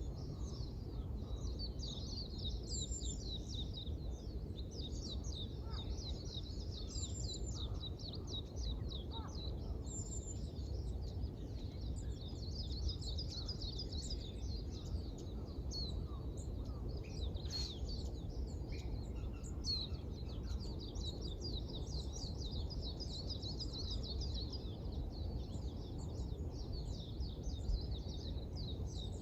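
Songbirds twittering in a dense, continuous chorus of short high chirps over a steady low rumble of background noise.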